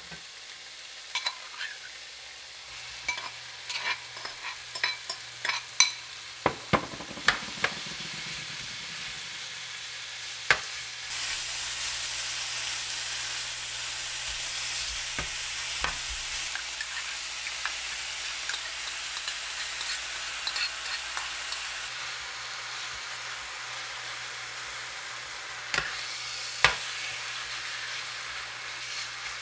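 Beef slices and vegetables sizzling in a frying pan while a metal spoon stirs them. Sharp clinks and scrapes of the spoon against the pan come thick in the first few seconds and again near the end. The sizzle grows louder about a third of the way in as the meat spreads over the hot pan.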